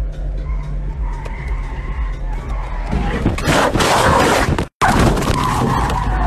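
A car's engine runs steadily, then about three seconds in the tyres break into a loud screech and rushing skid as the car spins out. The sound cuts out for an instant partway through the skid.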